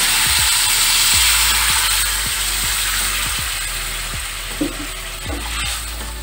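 Hot water poured into a hot steel kadai of fried moong dal and vegetables, hissing and sizzling loudly as it hits the pan. The sizzle peaks in the first couple of seconds, then slowly dies down, with a couple of light knocks near the end.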